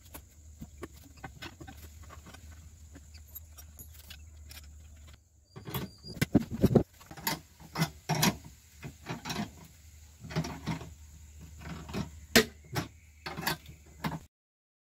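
A metal bracket, nuts and bolts being handled and fitted by hand: irregular sharp clinks and knocks, sparse at first and much busier from about five seconds in, over a low steady hum. The sound cuts off just before the end.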